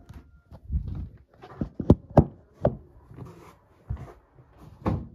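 A run of irregular knocks, low thuds and sharp clicks from things being handled, the sharpest about two seconds in and again near the end.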